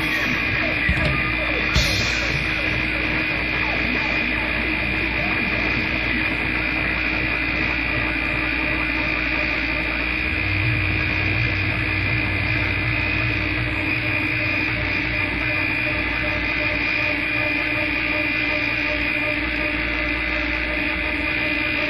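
Harsh noise music: a dense, unbroken wall of distorted noise with steady droning tones running through it. A couple of short clicks come near the start, and a low hum swells up about halfway through.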